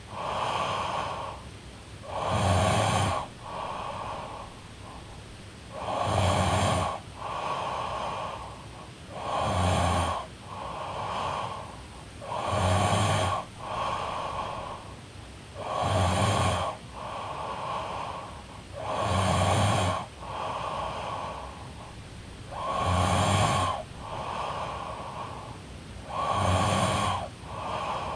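A young woman snoring in her sleep: eight loud snores with a low rattle, evenly spaced about every three and a half seconds, each followed by a softer breath.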